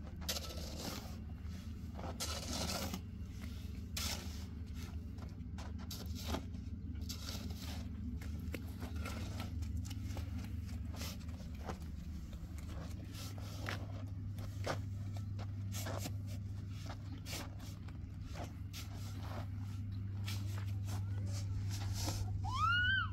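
Metal shovel blade scraping and scooping into a heap of dry, powdery earth, in repeated irregular strokes over a steady low hum. A brief high call rises and falls near the end.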